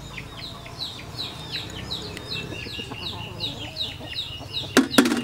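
Chicks peeping rapidly and continuously, several quick high chirps a second sliding downward in pitch. Two sharp knocks near the end stand out as the loudest sounds.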